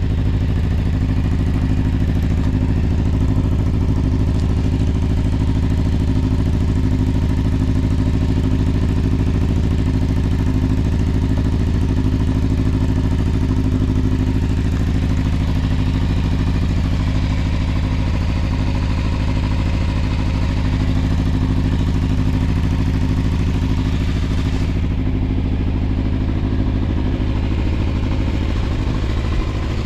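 Suzuki Bandit 250's inline-four engine running steadily at an even speed, free of abnormal noises.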